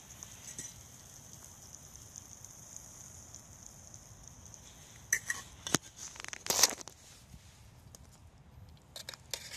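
Pot of meat simmering on a small wood-pellet camp stove, giving a steady high hiss. A little past halfway come several loud clicks and scrapes, and two more near the end.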